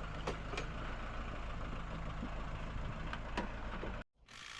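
Steady low mechanical hum, like a motor or engine running, with a few light clicks; it cuts off abruptly about four seconds in.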